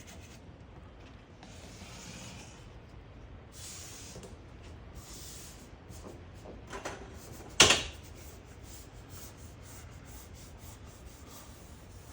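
Vinyl decal being rubbed down onto a boat hull through its transfer tape: several short scraping, rubbing strokes, with one sharp tap a little past the middle.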